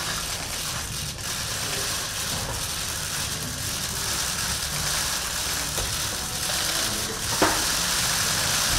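Many press photographers' camera shutters clicking rapidly together, a steady crackling haze, with one sharper click about seven seconds in.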